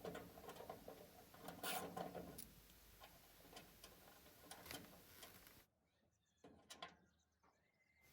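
Ratchet wrench clicking faintly in short irregular runs of ticks as hood hinge bolts are loosened, then near silence about five and a half seconds in.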